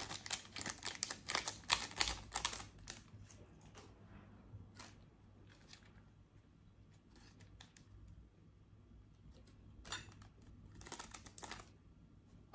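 Scissors snipping open small plastic seasoning sachets: a quick run of sharp snipping clicks in the first few seconds, then a few scattered snips and clicks of the packets being handled near the end.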